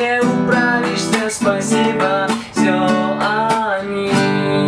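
Nylon-string classical guitar strummed in a steady accompaniment pattern, moving between chords.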